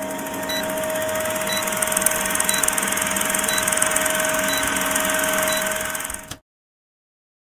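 Film-projector clatter sound effect from a countdown-leader intro: a steady rattling whir with a constant mid-pitched hum and a faint tick each second. It stops abruptly about six seconds in.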